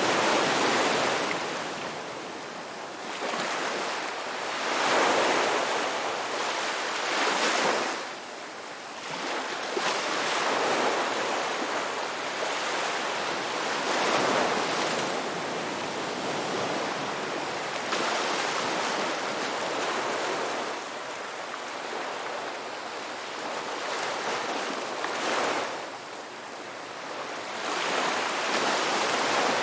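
Ocean waves breaking and washing on a shore, a steady hiss of surf that swells with each breaker every few seconds and ebbs between them.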